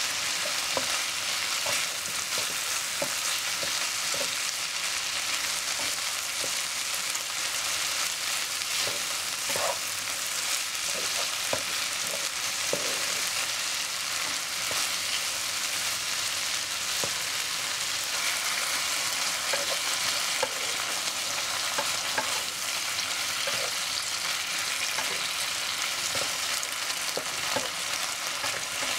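Long beans, chilli and onion sizzling steadily as they stir-fry in a wok, with scattered light taps and scrapes of a spatula stirring them against the pan.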